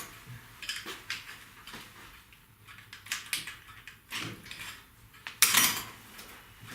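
Small metal parts and tools clinking and clattering as they are handled during carburetor repair, with the loudest clatter about five and a half seconds in.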